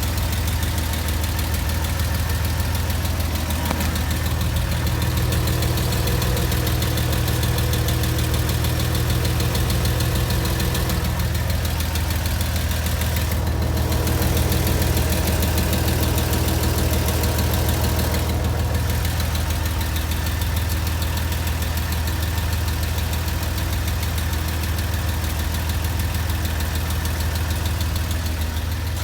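Porsche Boxster 986 flat-six idling steadily with a fast ticking over it. The ticking comes on only when the engine is very hot after hard driving, and the owner wonders whether it is the lifters or the exhaust.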